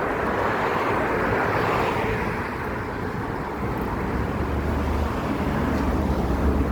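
Strong wind blowing in gusts, with a heavy low rumble of wind buffeting the microphone in the second half.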